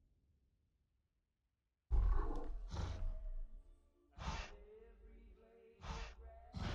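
Monster roar sound effect of a kaiju such as Godzilla, cutting in suddenly about two seconds in after a near-silent gap. It is loud, with a deep rumble underneath and several breathy bursts about a second and a half apart.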